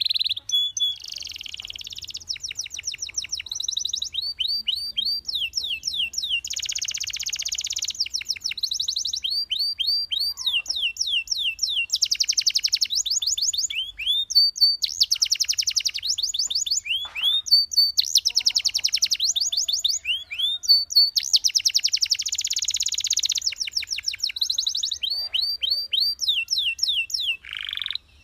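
Canary singing a long, unbroken song: fast trills of rapidly repeated, sharply falling notes alternate with dense buzzing rolls. The song stops abruptly just before the end.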